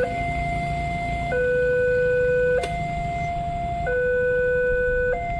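Railway level-crossing warning alarm from the pole-mounted loudspeaker: an electronic two-tone hi-lo signal that switches between a higher and a lower tone about every 1.3 seconds, sounding while the crossing is closed for an approaching train. A low rumble runs underneath, with a faint click about two and a half seconds in.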